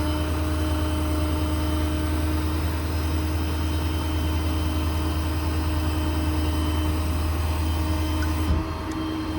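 The truck's 6.7 Power Stroke diesel runs steadily with the PTO driving the crane's hydraulic pump: a steady low hum with a held tone above it. Near the end the low hum suddenly drops away.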